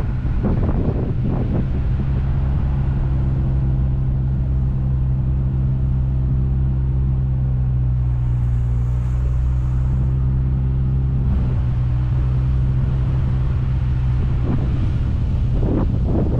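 A car being driven, its engine running steadily under road and tyre noise. Near the end, wind gusts buffet the outside-mounted microphone.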